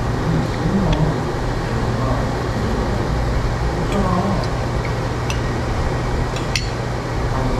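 Restaurant room tone: a steady fan-like hum and hiss, with faint background chatter and a few light clinks of tableware.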